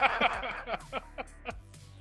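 Background music under a short burst of laughter from several men in the first second, which then dies down.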